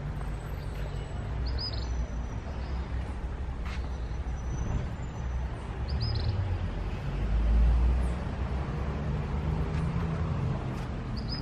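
Outdoor ambience: a low rumble that swells to its loudest about two-thirds of the way through, with a few faint clicks and three or four short high chirps.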